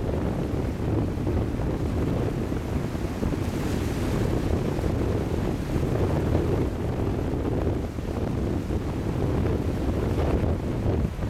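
Wind buffeting the microphone with a steady low rumble, over the hiss of small waves washing up over the sand at the shoreline. The wash swells a few seconds in and again near the end.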